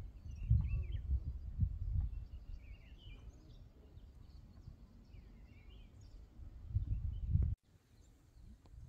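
Wind gusting on the phone microphone, in low uneven rumbles, with birds chirping now and then above it; the rumble swells again near the end and then cuts off suddenly.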